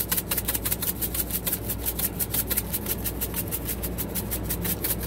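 Gas generator running steadily: a low hum with a fast, even ticking pulse of several beats a second.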